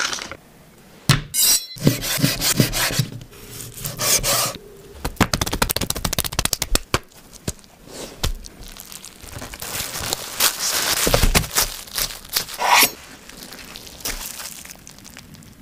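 Food-prep sounds: a knife sawing and scraping on a wooden cutting board, with plastic bag and plastic wrap rustling, in a run of short clicks and scrapes.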